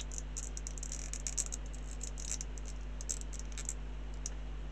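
Small plastic model-kit parts clicking against each other in the fingers as a part that won't quite fit is pushed onto its pegs: a run of small, quick clicks, busiest in the first second or so, over a steady low hum.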